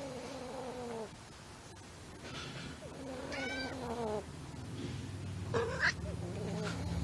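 Siamese cat meowing: two long, drawn-out meows that fall in pitch, one at the start and one about three seconds in, then a short, higher cry just before six seconds. A low steady sound builds under it near the end.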